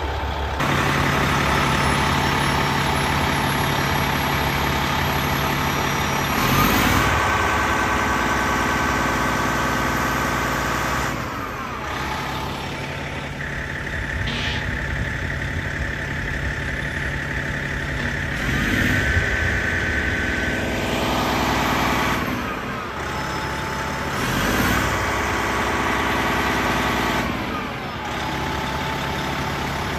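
Detroit Diesel Series 60 engine of a fire department tower ladder truck running steadily, its note shifting several times with brief rises in pitch.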